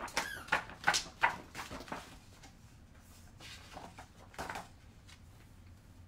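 A hardcover picture book being shaken by hand, its pages and cover rattling in quick short strokes, busiest in the first two seconds, then fainter, with one more shake about four and a half seconds in.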